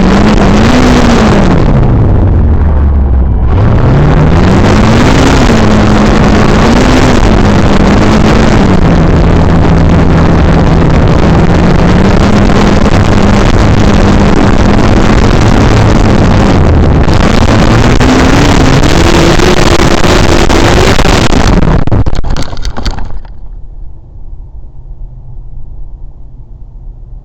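Electric motor and propeller of an E-Flite Draco RC bush plane running, its pitch rising and falling again and again with the throttle, under a loud rushing noise. The sound cuts off about 23 seconds in, leaving a faint low hum.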